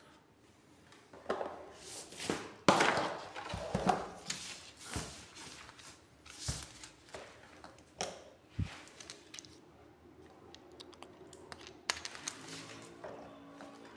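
Hands handling a plastic mini pressure washer while fitting its hose and connectors: irregular clicks, knocks and rustles of plastic and metal parts, with a sharp knock about three seconds in the loudest.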